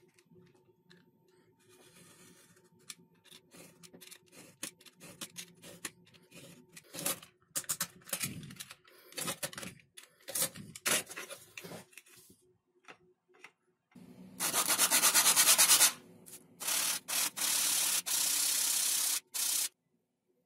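Utility knife blade drawn again and again along a steel ruler, scoring and cutting through glued popsicle sticks in short scraping strokes. In the last third comes a much louder rasping rub of the wooden sticks on an abrasive, first in a quick run of strokes, then in several longer strokes.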